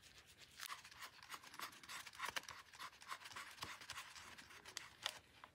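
Faint rustling, scraping and small clicks as gloved hands handle a rubber AN10 oil hose and position it over the engine.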